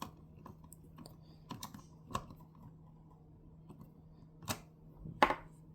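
Small scattered clicks and taps of a tiny screwdriver and screws on a plastic alarm keypad housing as the screws are driven in, with a sharper click about five seconds in.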